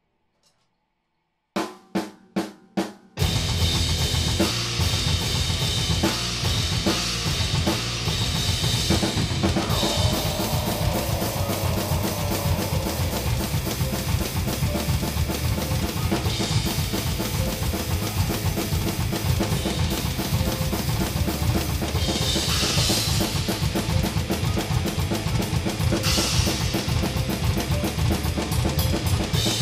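Extreme-metal drumming on a Pearl Masters MCX kit: four evenly spaced hits about two seconds in, then fast, dense playing with rapid bass drum, snare and Soultone cymbal crashes, played along with the recorded song.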